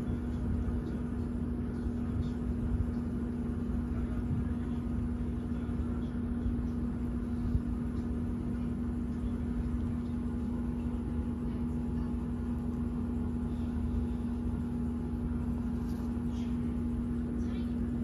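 Steady machine hum with a constant low tone over a low rumble, unchanging throughout, with a few faint clicks near the end.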